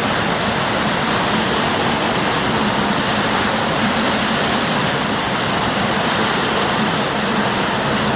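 Water rushing steadily in an underground cave stream, a loud, even noise.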